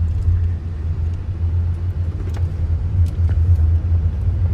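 Steady low rumble of a moving car's road and engine noise, heard inside the cabin.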